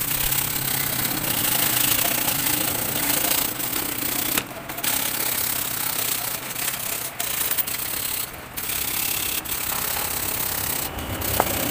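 A paintbrush scrubbing dust off a pressed-metal engine heat shield in quick back-and-forth strokes, a steady rough rubbing with short breaks about four and a half and eight and a half seconds in.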